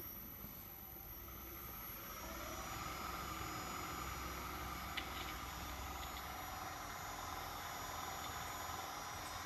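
Electric motor and reduction gearbox driving a Porkert meat grinder, speed-controlled by a frequency inverter, running with a steady hum and whine. About two seconds in the whine rises in pitch as the motor speeds up, then holds steady; a single click about five seconds in.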